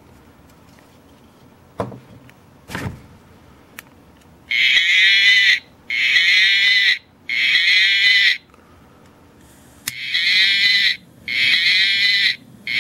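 Cow-shaped novelty lighter's electronic moo sound effect, played six times in calls of about a second each: three in a row, a short pause, then three more. Two clicks come before the first moo.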